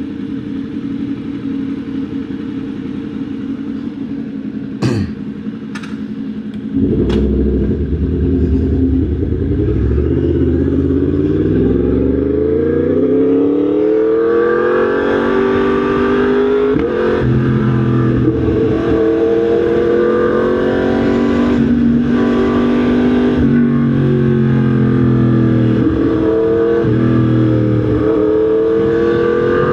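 Yamaha MT-10 SP motorcycle's crossplane inline-four engine running steadily, then a few sharp clicks. About seven seconds in it gets louder and accelerates with a steadily rising pitch, then holds a high note that dips briefly a few times.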